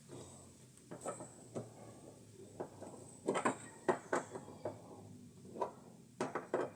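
Scattered clicks and knocks of metal washing-machine parts being handled during disassembly of the transmission, with a few quick clusters of knocks in the middle and near the end.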